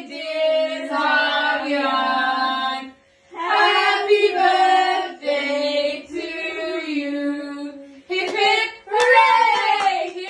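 A group of women and children singing a birthday song together in long held notes, with short breaths between phrases about three seconds in and again near eight seconds.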